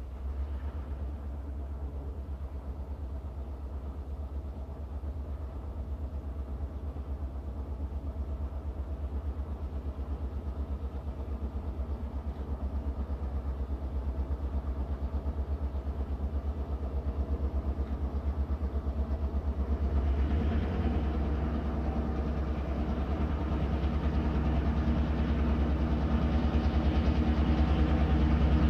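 Diesel locomotive engine of a Norfolk Southern EMD road switcher running as the train approaches. It is a steady low drone that grows louder, and gets fuller and louder about two-thirds of the way through.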